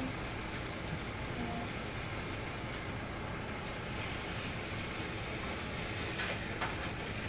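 Battery-powered Trackmaster toy train running along plastic track: a steady motor whir, with a few light clicks about six seconds in.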